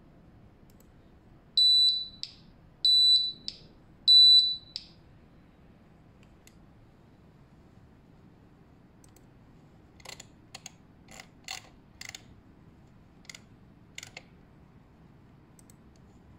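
Buzzer of an Orb 50 BLE alarm tag sounding three loud, steady high-pitched beeps about 1.3 s apart as its sound alarm is triggered. Later, a run of quieter clicks from the laptop as the tag's settings are changed.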